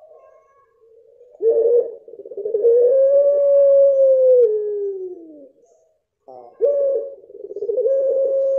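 Puter pelung, a long-voiced ringneck dove, giving its long drawn-out coo twice. Each call opens with a short abrupt note, then holds a steady tone for about three seconds before stepping down and sliding lower as it fades. The second call starts about six and a half seconds in and is still going at the end.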